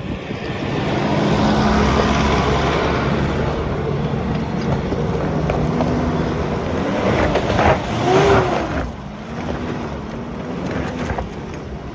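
An off-road 4x4's engine driving on a track, loud and steady, with the engine pitch rising and falling a few times about eight seconds in.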